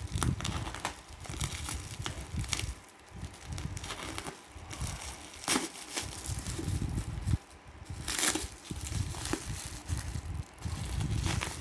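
Plastic parcel packaging crinkling and rustling as it is unwrapped by hand, with irregular sharp crackles and handling bumps.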